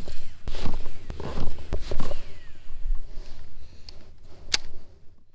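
Handling noise from a sleeve brushing and bumping the camera's microphone: an irregular run of rustles, thumps and clicks, with one sharp click about four and a half seconds in.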